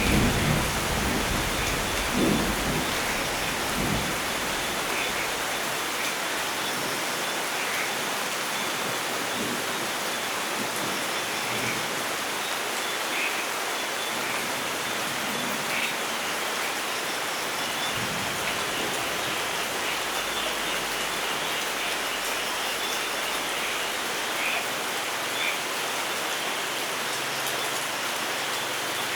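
Steady heavy rain falling in a forest, an even hiss with scattered drips. A low thunder rumble dies away over the first few seconds.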